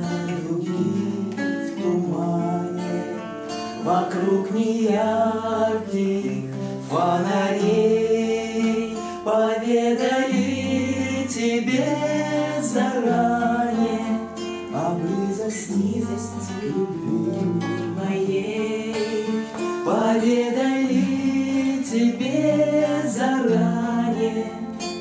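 A man and a woman singing a slow bard song together, accompanying themselves on two acoustic guitars strummed and plucked in steady chords.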